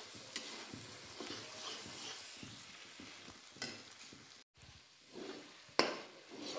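Flat spatula scraping and stirring a thick masala paste in a metal kadai while it fries with a light sizzle of oil, being cooked down until the oil separates. The sound cuts out for a moment about two-thirds through, and a sharper scrape comes near the end.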